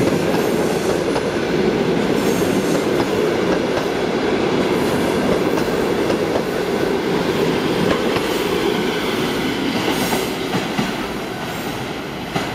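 Passenger sleeping cars rolling past as a departing train gathers way, steel wheels running on the rails. The noise eases off over the last couple of seconds as the train pulls away.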